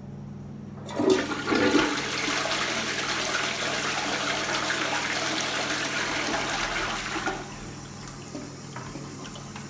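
A 1970s Twyfords Classic lever-flush cistern flushing: the lever drops about a second in and water rushes loudly into the pan for about six seconds, then dies away to the quieter hiss of the cistern refilling.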